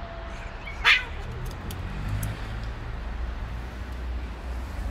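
Stray cats in a standoff: a cat's low, drawn-out yowl tails off, then one short, loud spit about a second in, over a steady low rumble of traffic.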